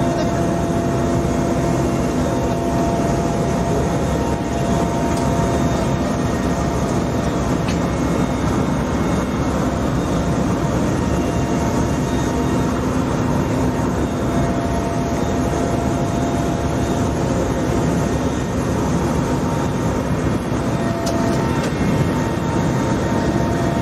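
Helicopter engine and rotor noise heard from inside the cabin in flight: a steady, loud drone with a few steady humming tones running through it.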